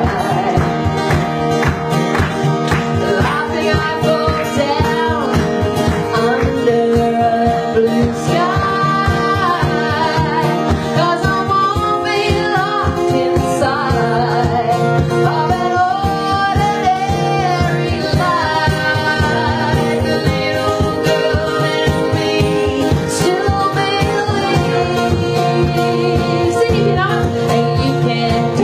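Live song: a woman singing into a microphone over a steadily strummed acoustic guitar.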